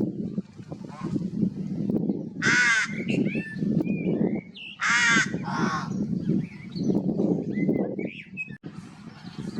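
Crows cawing: two loud, harsh calls about two and a half seconds apart, with fainter bird chirps between them, over a steady low rumble.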